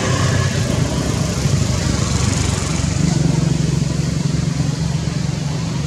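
A steady low mechanical hum, like an engine idling, over a constant hiss.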